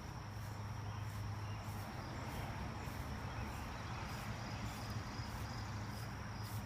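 Insects chirping in evenly repeated pulses over a low, steady hum.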